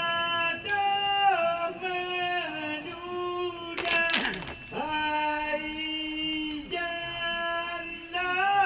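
Voices singing a Saman dance song in unison, in long held notes that slide from one pitch to the next every second or so. A brief sharp burst of noise breaks in about four seconds in.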